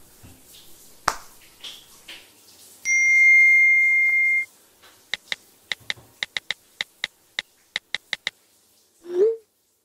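Smartphone sounds: a single steady high electronic beep of about a second and a half as the phone goes off, followed by a run of about fourteen quick, irregular key-tap clicks as someone types on the phone. Near the end comes a short, low, rising sound.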